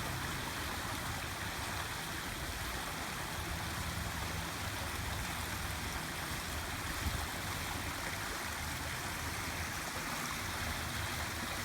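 Steady rushing of water with a faint, steady high whine underneath.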